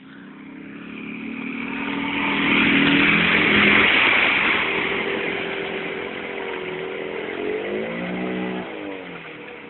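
Fiat Cinquecento's small petrol engine revving hard as the car drives through a river, with water splashing and spraying around it loudest about three seconds in. Near the end the revs surge up and down as the car bogs down in the deep water with its wheels spinning.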